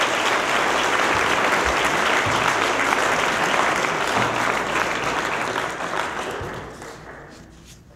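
Audience applauding, steady for about six seconds, then dying away near the end.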